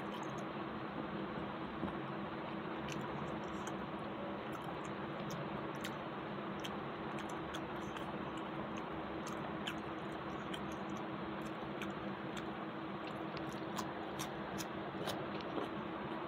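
A person chewing and eating with her fingers: soft chewing with scattered small clicks, faint over a steady hum.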